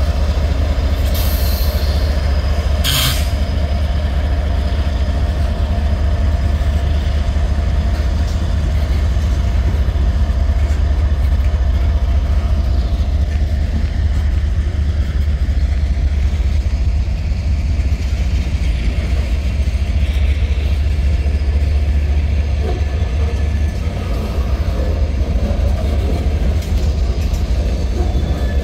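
CSX freight train rolling past at close range, mostly the cars after the locomotives: a steady low rumble with running wheel and car noise. There are two or three short, sharp high sounds in the first three seconds.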